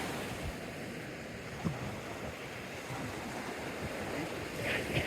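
Surf washing onto a sandy beach, a steady rushing hiss, with wind buffeting the microphone.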